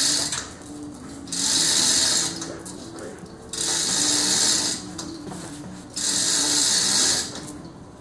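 Manual chain hoist being worked by hand: the chain rattles and the pawl clicks through the sprockets in bursts of about a second, about every two seconds, four times, as the hand chain is pulled in strokes.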